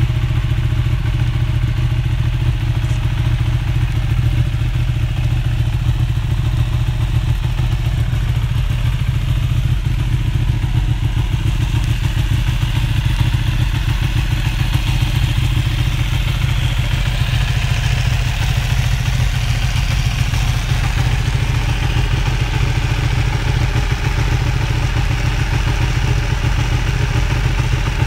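Ducati 1299 Panigale's Superquadro L-twin engine idling steadily in neutral.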